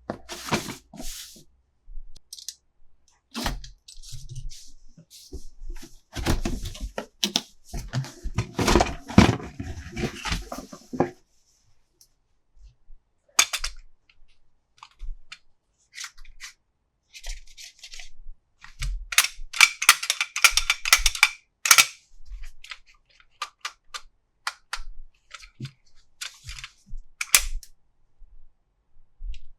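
Plastic toy packaging and toy parts being handled close to the microphone: irregular bursts of sharp clicks, snaps and crinkles, busiest for a few seconds twice, with short quiet gaps between.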